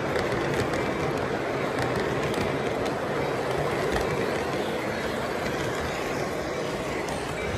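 O scale Lionel model coal train rolling past on three-rail track: a steady rumble of hopper-car wheels, with a model diesel locomotive going by midway.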